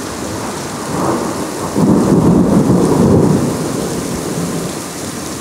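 Thunder rumbling over steady heavy rain. The rumble swells about a second in, is loudest for a second or so, then dies away. It arrives several seconds after the lightning flash.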